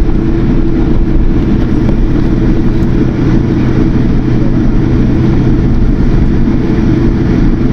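Steady jet engine and airflow noise inside the cabin of a Boeing 787-10 airliner: a constant rushing with a low steady hum underneath, unchanging throughout.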